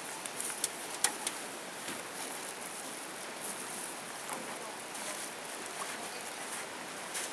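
Plastic bags and gear being lifted out of a metal boat: a few sharp knocks and rustles about a second in and again near the end, over a steady outdoor hiss.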